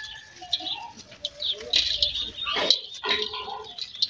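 Hands squeezing and crumbling dry, gritty lumps in a steel bowl: crunching and gritty rustling as they break apart, with a sharper crunch about two and a half seconds in.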